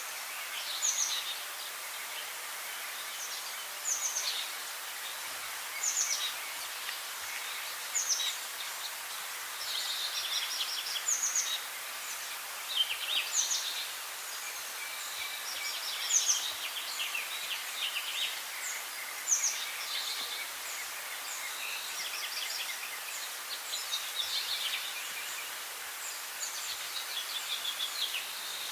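Several songbirds singing over a steady background hiss: one short, high call repeats every two to three seconds, with quicker twittering phrases from other birds in between.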